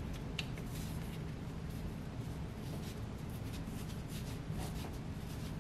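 Faint rubbing and a few light clicks of gloved hands fitting a cap onto a brake line fitting at a truck's master cylinder, over a steady low hum.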